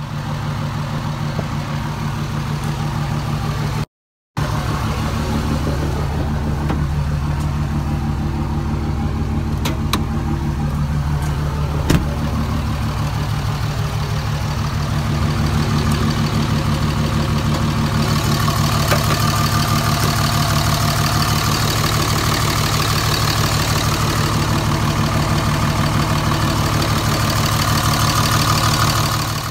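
5.9-litre Cummins inline-six turbodiesel of a 2004.5 Dodge Ram idling steadily through a 5-inch straight-pipe exhaust. There is a short break about four seconds in, and a higher hiss grows louder about two-thirds of the way through.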